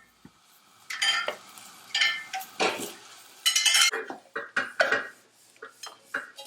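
A cooking utensil clanking and scraping against a pot in irregular strokes, stirring shrimp as they fry; several strikes ring metallically, the loudest cluster a little past halfway.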